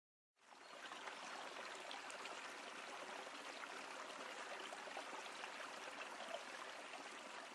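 A faint, steady rushing noise like running water, fading in about half a second in.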